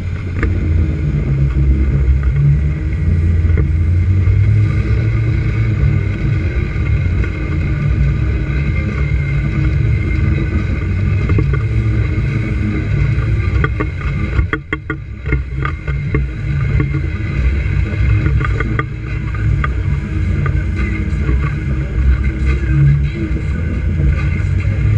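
Outboard motor of a small aluminium boat running steadily at speed, with wind on the microphone and water rushing past the hull. The sound briefly dips about halfway through.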